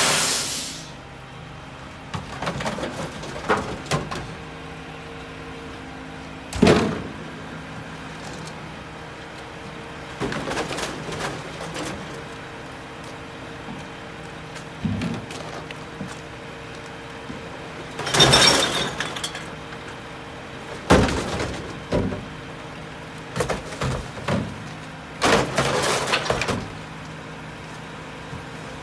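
Heil split-body rear-loader garbage truck idling steadily while recycling bins are tipped into its hopper: repeated crashes and clatters of bottles and cans falling in, with glass breaking and plastic bins knocking on the hopper edge. A short hiss at the very start.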